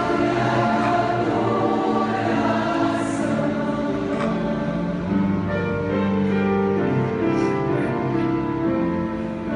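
A women's choir singing, many voices holding sustained chords together.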